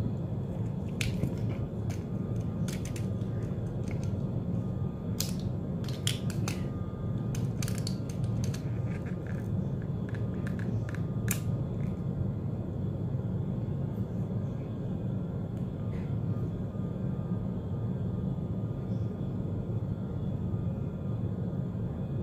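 Sharp plastic clicks and taps from a selfie stick's phone clamp being handled and adjusted, many in the first half and fewer later, over a steady low hum.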